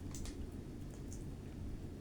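Faint wet mouth clicks and chewing of someone eating a chicken wing, a few short clicks near the start and about a second in, over a steady low hum.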